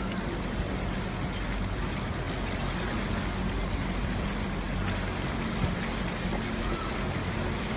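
Rushing floodwater: a steady, unbroken noise with a low rumble underneath.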